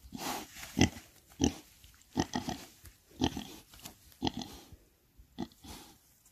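Pot-bellied pigs grunting in short bursts, about one a second, with a quick run of grunts about two seconds in.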